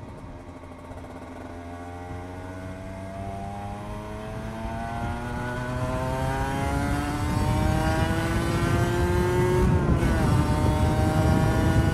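Cagiva Mito 125's single-cylinder two-stroke engine pulling under acceleration, its pitch rising slowly and steadily as it grows louder, with a brief dip about ten seconds in. Wind noise builds underneath.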